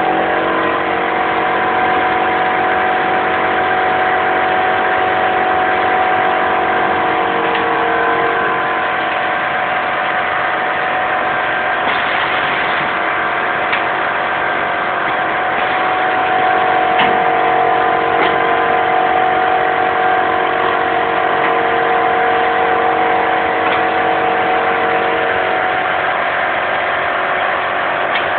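Semi-automatic shrink wrapping machine running: a steady hum of motors and fans, with a few sharp clicks now and then.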